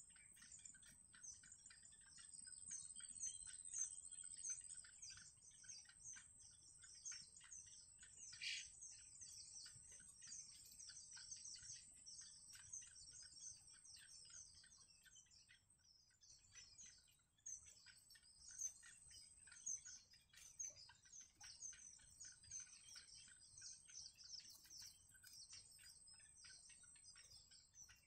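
Yellow bittern chicks giving faint, rapid, high-pitched begging peeps, several a second, over a steady thin high whine.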